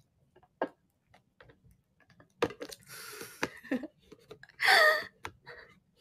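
A woman's non-speech vocal sounds close to the microphone: a long breathy exhale about halfway through and a short loud voiced sound near the end, among scattered small clicks.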